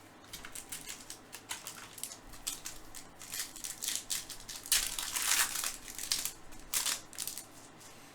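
Baseball cards being handled and flipped, a run of quick clicks and crinkles from card stock and packaging. It is busiest about five seconds in.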